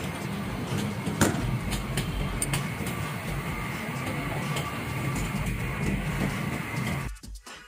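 Chicken karahi cooking in a steel wok over a gas flame: steady burner noise and simmering, with a sharp metal clink from a utensil about a second in. It cuts off near the end.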